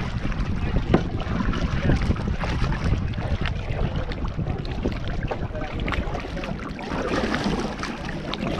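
Wind buffeting the microphone, a loud uneven rumble, over water lapping and splashing with small irregular slaps.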